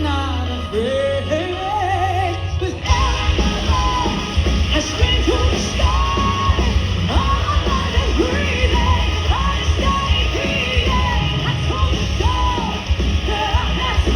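Live hard rock band playing loud, with a sung and shouted lead vocal over heavy guitars, bass and drums. The full band comes in with a sudden rise in fullness about three seconds in.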